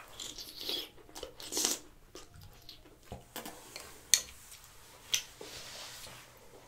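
Close-up sounds of a person chewing seafood, with two sharp clicks about four and five seconds in.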